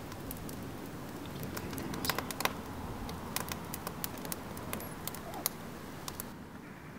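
Dry grass and twigs burning, crackling with irregular sharp pops over a low rumble; the crackling stops near the end.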